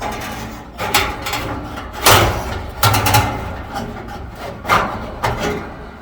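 Metal clanks and scrapes as a replacement dryer heating element is forced into its sheet-metal housing by hand, a series of irregular knocks with the loudest about two seconds in.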